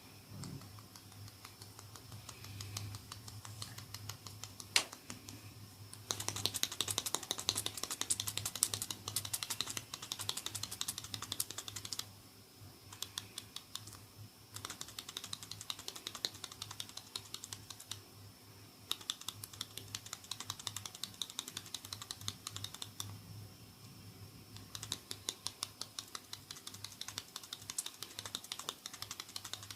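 Hands working oiled hair and scalp in a head massage: rapid crackling clicks in bursts of a few seconds each, with brief pauses between them, and one sharp single click about five seconds in.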